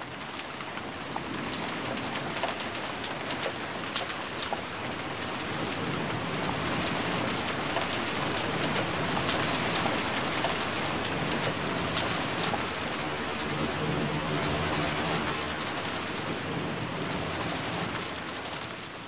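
Steady rain falling on a surface: a dense hiss with scattered sharp ticks of drops, fading in at the start and fading out near the end. Faint steady low tones sound under it in the second half.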